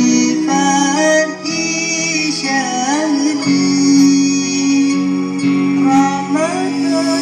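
Music played back through a miniature sound system during a sound check: a sliding, guitar-like melody with long held notes over a steady bass line.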